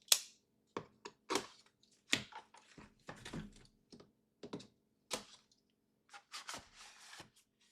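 Handling of a cardboard product box and its packaging as it is opened: a run of irregular sharp clicks, taps and short scrapes and rustles.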